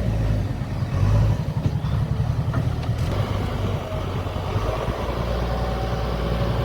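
JCB backhoe loader's diesel engine running steadily with a low, evenly pulsing rumble.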